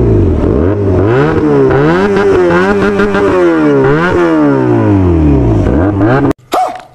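Motorcycle engine revving, its pitch rising and falling several times, then cutting off abruptly about six seconds in.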